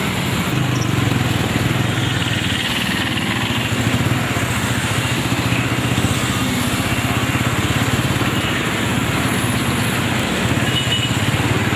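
Vehicle engines running steadily with a constant low hum, from a convoy of motorcycles and small vans driving along a road.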